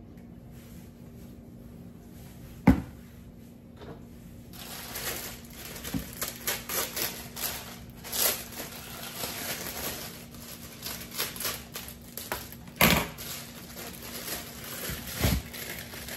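Plastic bag of small golden potatoes crinkling as it is cut open with scissors and handled, with knocks of potatoes dropping into a plastic mixing bowl. A single sharp knock comes about three seconds in, before the crinkling starts.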